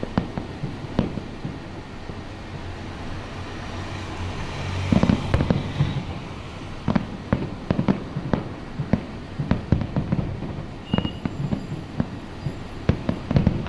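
Fireworks display: an irregular run of sharp bangs and pops, thickening into a dense, louder cluster about five seconds in.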